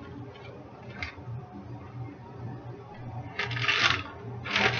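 Plastic zipper freezer bag crinkling and rustling as chicken breasts are worked into it: a short rustle about a second in, then two louder rustles near the end.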